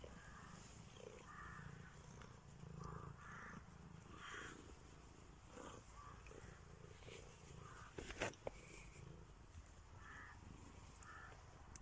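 Cat purring faintly while being stroked, with a couple of sharp clicks about eight seconds in.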